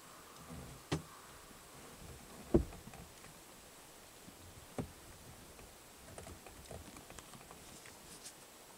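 A brown bear foraging in forest undergrowth: a few separate soft thumps and crackles, the loudest about two and a half seconds in, over a quiet background.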